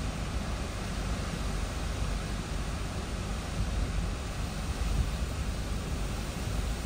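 Hurricane-force wind gusting against a car, with rain on the glass, heard from inside the cabin: a steady rush over an uneven low rumble.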